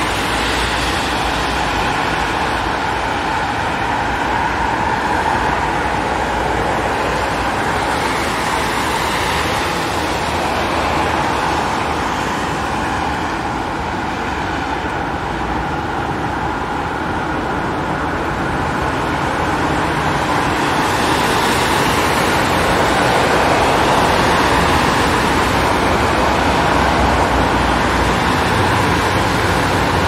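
Dense city street traffic: a continuous wash of car engines and tyre noise with no single vehicle standing out, dipping slightly about halfway and then growing a little louder.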